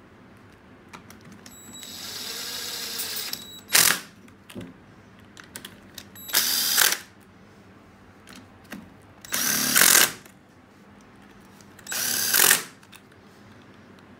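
Cordless power driver running transmission case bolts down in short bursts: four loud bursts of about half a second, a few seconds apart, and a longer, quieter run with a thin whine about two seconds in. Light clicks of metal on metal sound between the bursts.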